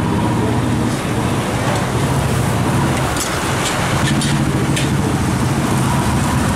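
Steady, loud ambience of a busy dosa griddle counter: a low rumble under a hiss. A few light metal clicks of utensils come a little past the middle.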